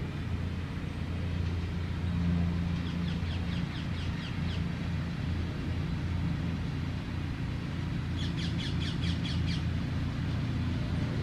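Ride-on miniature railway locomotive in diesel outline running steadily with a low engine hum as it approaches hauling its passenger coaches. A bird trills in quick runs twice, about three seconds in and again near eight seconds.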